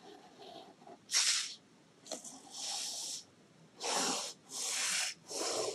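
Fine-tip ink pen scratching across a paper tile as it draws a zigzag: about five short, hissy strokes, the first about a second in, each lasting half a second to a second.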